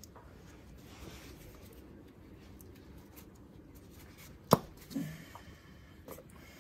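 A spark plug wire boot being pushed onto a spark plug, with one sharp click about four and a half seconds in as it seats, a brief duller sound right after, and light handling rustle around it.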